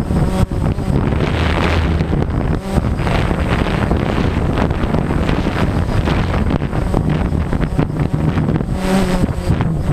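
Strong wind buffeting the microphone in a loud, uneven rumble. Under it, the DJI Phantom quadcopter's motors whine, wavering in pitch, most clearly near the end.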